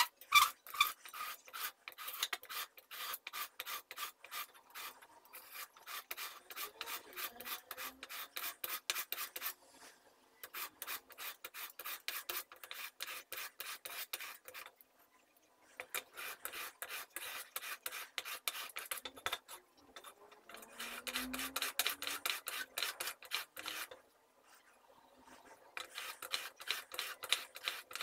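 A steel chisel blade being honed on a flat sharpening stone: quick, gritty back-and-forth scraping strokes. The strokes come in several runs of a few seconds each, broken by short pauses.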